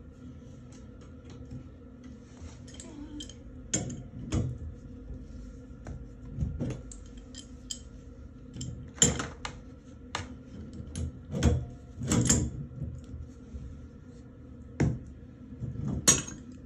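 Scattered metallic clinks and knocks as an adjustable wrench and a pipe valve are handled and fitted onto a galvanized pipe stub, about eight separate strikes, over a faint steady hum.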